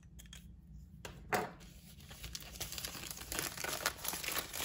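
Thin plastic film being slit and peeled off a cardboard tray of paint tubes: a sharp tick a little over a second in, then crinkling and tearing of the plastic from about two seconds in, growing denser toward the end.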